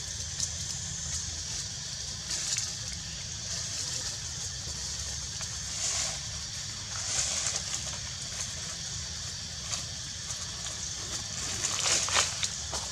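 Outdoor forest ambience: a steady low rumble and high hiss, with short crackling rustles like dry leaves being stirred, a cluster of them louder near the end.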